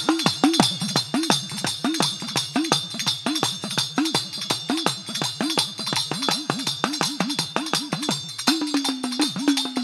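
Devotional music with a steady beat: low hand-drum strokes that swoop in pitch, about two to three a second, over jingling percussion like a tambourine.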